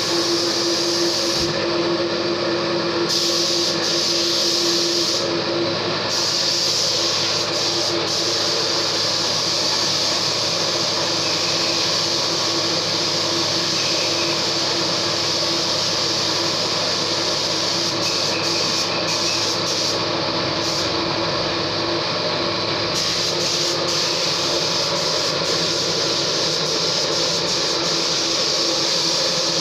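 A car engine running steadily: a constant hum with a hiss over it.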